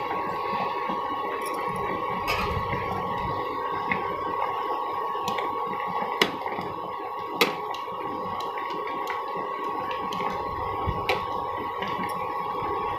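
Curry gravy simmering and bubbling in a pan around pumpkin-flower fritters as a spatula stirs them, with a few sharp taps of the spatula against the pan. A steady high tone sounds in the background.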